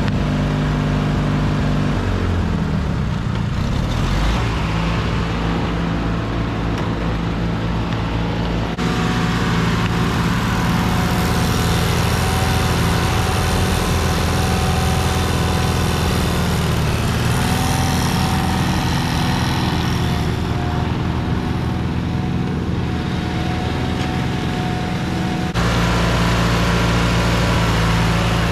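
Small engines of riding garden tractors running, the engine note dipping and rising as they are throttled and driven around. The sound changes abruptly twice, about a third of the way in and near the end.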